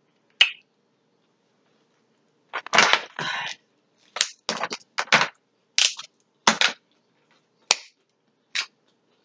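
Alaskan king crab leg shells being cracked and snapped apart by hand: one sharp crack, then after a pause a run of about a dozen short cracks and crunches.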